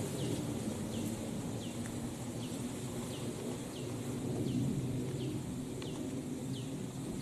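A bird repeating one short, falling chirp at an even pace, about three every two seconds, over a steady low rumble of wind in rural outdoor air.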